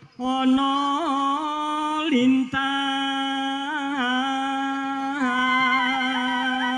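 A solo voice singing a slow Javanese song in long held notes with small ornamental turns in pitch. There is a brief break about two and a half seconds in.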